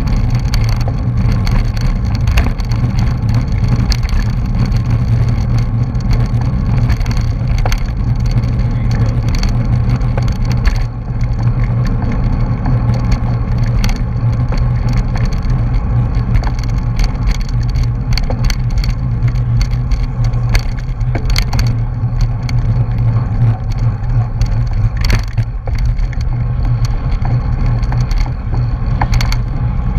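Wind rushing over the microphone of a bicycle-mounted camera riding at race speed, with a steady low road rumble and frequent small rattles and clicks from bumps in the pavement.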